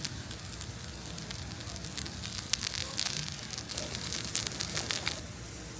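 Food sizzling in a hot pan, with a steady run of sharp spitting crackles that thickens in the middle.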